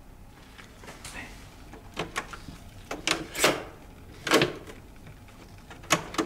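Plastic clunks and clicks of a Panasonic XBS cassette boombox's tape deck being handled: the cassette door worked and a transport key pressed near the end. About five separate knocks, the loudest two in the middle.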